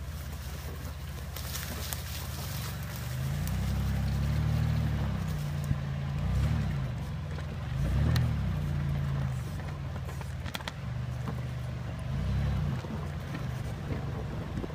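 Vehicle engine running while driving a dirt trail, revving up and easing off several times, with a few sharp clicks about ten seconds in.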